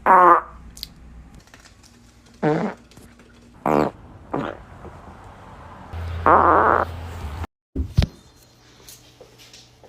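A string of about six short farts, each a brief buzzing rasp with a pitch to it. The longest lasts close to a second, about six seconds in.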